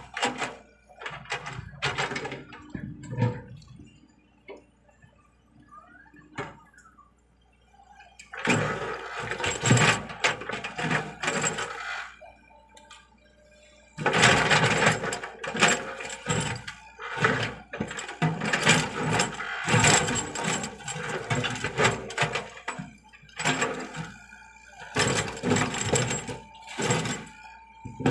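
Excavator at work: irregular bursts of clattering and scraping, with quieter stretches about four to eight seconds in and twelve to fourteen seconds in.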